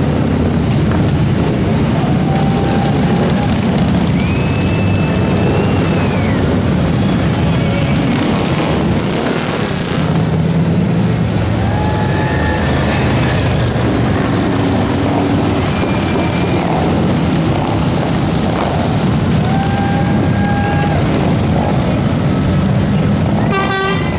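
A steady procession of touring motorcycles and trikes riding slowly past, their engines making a continuous low rumble. A few short, steady high tones come and go over it.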